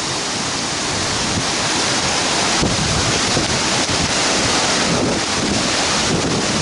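Hurricane-force wind rushing and buffeting the microphone, with driving rain, as one loud, steady roar of noise. A deeper rumble of wind on the microphone builds from about two and a half seconds in.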